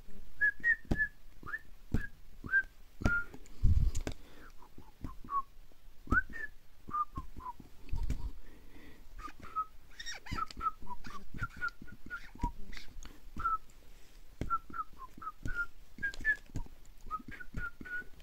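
A run of short whistled notes, each rising or falling in pitch, a few a second in no steady rhythm, with scattered sharp clicks between them.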